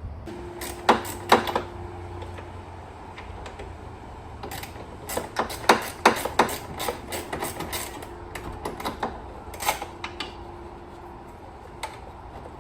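Irregular metallic clicks and knocks of hand tools and parts as an intercooler is unbolted and lifted out of an engine bay, busiest from about four and a half to seven seconds in.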